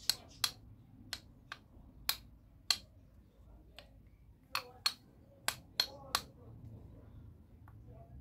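Sharp metal clicks, about a dozen at irregular intervals, from a connecting rod being worked by hand on the gudgeon pin of a new piston. This is a check of the pin's play, where side-to-side movement is normal.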